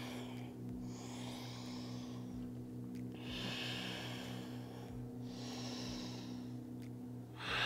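A person breathing slowly and audibly, three long breaths in a row, over a steady low hum.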